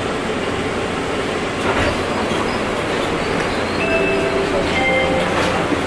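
Airport people-mover train car, heard from inside: a steady rumble and hum, with two brief tones about four and five seconds in.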